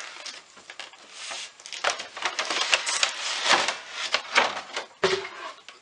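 Clear plastic packaging crinkling and rustling as a vinyl figure in its plastic bag and container is pulled up out of a cardboard box. The rapid crackling is busiest from about two seconds in.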